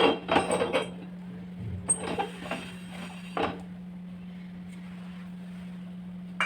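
A cooking pot clattering as it is lifted and set down on a stove burner, with a few more clinks of metal kitchenware about two and three and a half seconds in.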